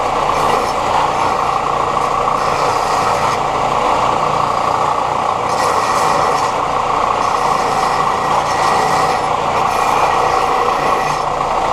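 Electric power tool running steadily at full speed, grinding or sanding the steel angle iron to shape the saddle cuts: a loud, unbroken motor whine with grinding hiss.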